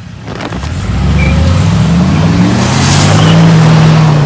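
A car accelerating hard on loose dirt: the engine revs up from about a second in and holds high and steady, while the spinning tyres spray dirt and gravel.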